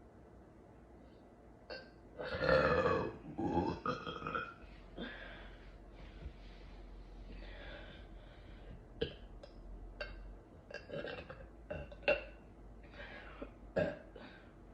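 A woman burping: one long, loud burp about two seconds in, then another shorter burst, then a string of smaller burps and mouth sounds.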